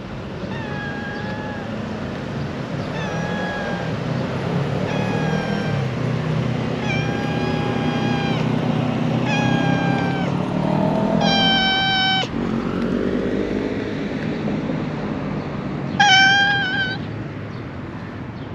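A stray cat meowing over and over for attention: about seven short meows some two seconds apart, growing louder, the last and loudest about sixteen seconds in.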